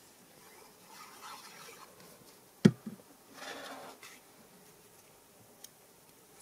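Card stock rustling and rubbing on a cutting mat as glued paper panels are handled and pressed into place, with one sharp knock about two and a half seconds in as the plastic glue bottle is set down on the mat.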